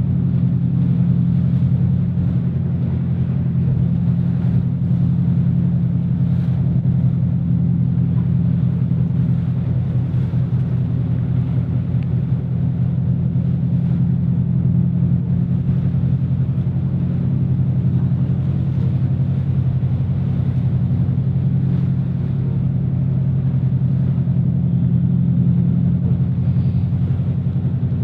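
A motorboat's engine running steadily underway, a loud unbroken low drone with an even hum, over a fainter rushing hiss.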